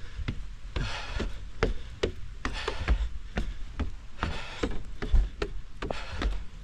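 Footsteps running up wooden boardwalk stairs, a steady run of hollow knocks about three a second, with hard breathing between the steps.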